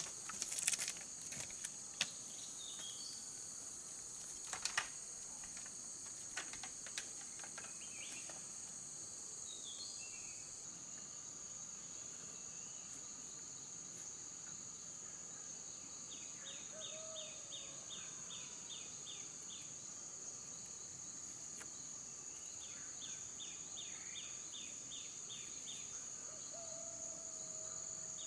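Steady high-pitched insect chorus, typical of crickets, with several sharp clicks or snaps in the first eight seconds. Birds call over it with short chirps and two quick runs of repeated notes, one near the middle and one near the end.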